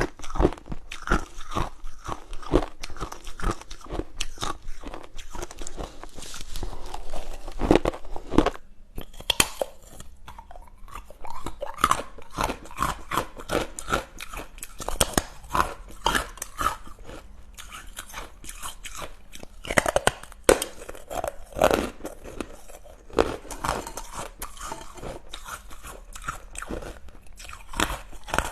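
A person chewing crunchy food: a dense, irregular run of crunches and snaps, with a brief pause about eight and a half seconds in.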